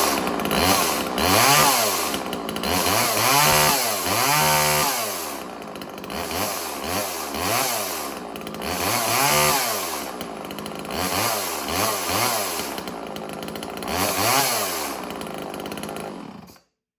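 Homelite XL two-stroke chainsaw running and revved up and down again and again, test-run just after its chain tension was adjusted; the engine is shut off near the end.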